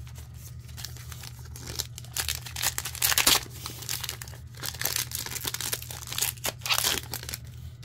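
A Topps Heritage baseball card pack's wrapper being torn open and crinkled: a run of rapid crackling rustles, loudest about three seconds in.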